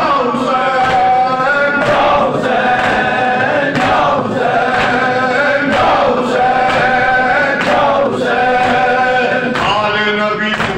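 A man chanting a noha, a Shia lament, into a microphone, with a group of men chanting along in chorus in long, wavering held notes.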